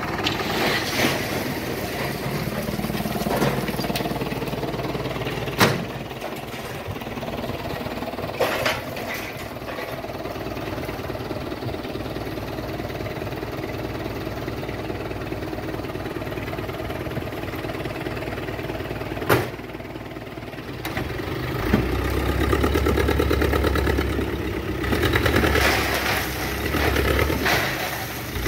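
Old dump truck's diesel engine running steadily, with three sharp knocks along the way. About three-quarters through it is revved up and held there to drive the hydraulic hoist that tips the gravel-loaded bed, and gravel begins sliding out of the back near the end.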